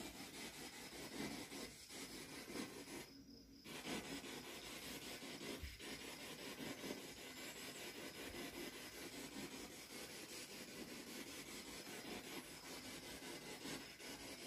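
Faint, steady background noise with no distinct events, dropping out briefly a few seconds in.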